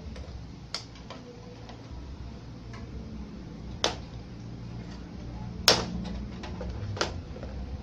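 Four sharp clicks and taps from a soldering iron and a TV circuit board being handled while the board is soldered. The loudest click comes about two thirds of the way through. A low steady hum runs underneath.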